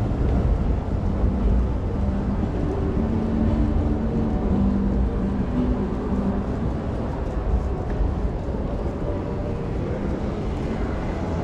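Road traffic running past: a steady low rumble of engines and tyres, with one vehicle's engine drone standing out for a few seconds in the middle.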